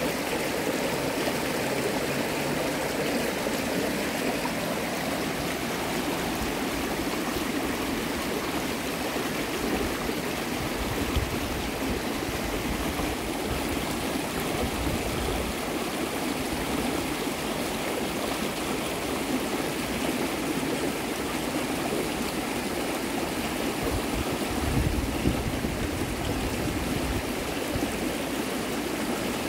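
Creek water rushing over rapids, a steady, even rush of moving water.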